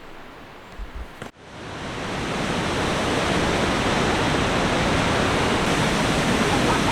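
High Force waterfall on the River Tees: loud, steady rushing of falling water, which swells up about a second in after a few low bumps.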